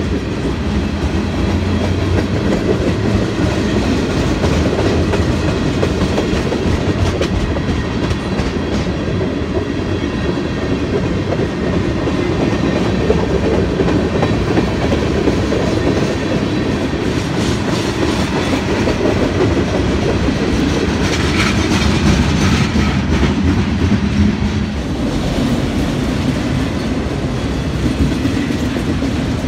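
Freight train of tank cars and then autorack cars rolling past close by: a loud, steady rumble of steel wheels on rail with an irregular clatter.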